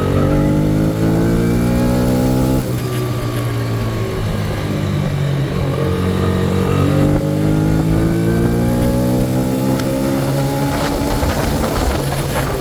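Yamaha Raptor 80 ATV's small single-cylinder engine revving under riding load, running cleanly on a newly fitted carburetor. Its pitch climbs, drops off sharply about two and a half seconds in, then builds again and eases off near the end.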